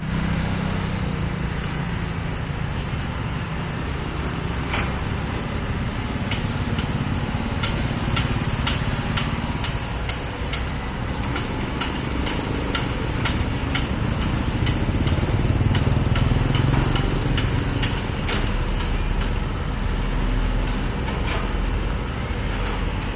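Kobelco hydraulic excavator's diesel engine running steadily while it digs a trench, with many sharp knocks and clanks from about six seconds in until near the end. The engine grows louder for a few seconds past the middle.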